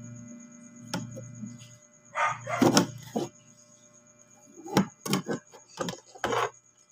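Handling noise from wires and circuit boards inside a portable speaker's cabinet: a loud rustle and clatter a couple of seconds in, then several short sharp knocks, over a low steady hum.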